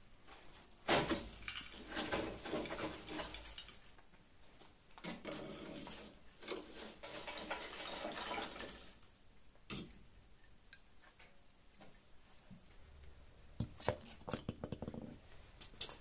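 Scraping and clinking of firebricks and steel tongs as a crucible is lifted out of a small brick furnace, in two long stretches, followed by a few sharp separate knocks.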